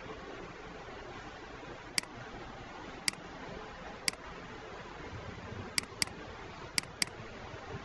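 Computer mouse clicking: seven sharp clicks, the first three about a second apart, then two quick pairs near the end, over a steady background hiss.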